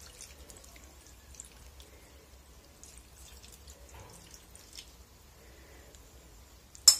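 A thin stream of soy sauce marinade, watered down with lemon juice, pouring from a bowl onto duck pieces in a multicooker bowl, faintly trickling and dripping. A sharp knock comes near the end.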